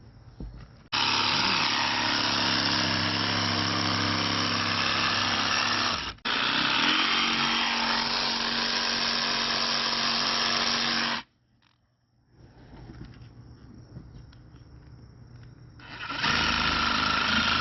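Power saw cutting into a pumpkin, its motor running at a steady pitch. It runs for about ten seconds with a momentary break in the middle, stops abruptly, then starts again near the end.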